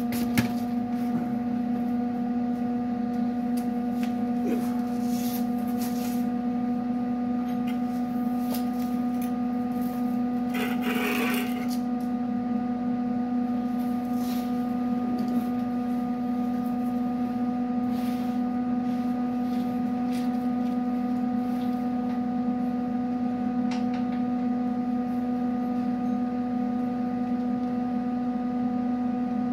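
An electric motor hums steadily at one pitch, having just spun up. Scattered light clicks and knocks and a short hiss about eleven seconds in come from someone moving about.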